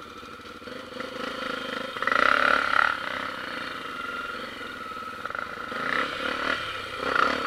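Single-cylinder trail motorcycle engine running, getting louder about two seconds in as it revs up, then settling to a steadier run.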